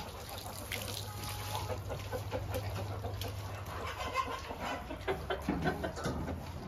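Chickens clucking in short scattered calls, over the low steady rumble of a wheelbarrow being pushed across wet concrete, which fades near the end.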